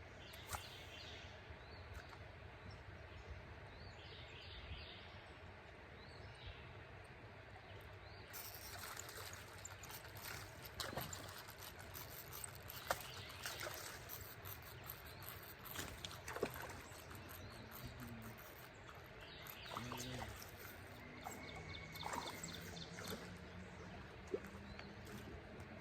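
Faint creekside ambience: trickling water and bird calls, with scattered clicks and rustles.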